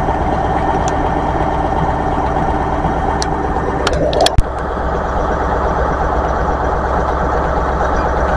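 Diesel engine of a Class 43 HST power car idling steadily at a station platform. About four seconds in there is a short crackle and a sharp click with a momentary break, after which the same steady idle carries on.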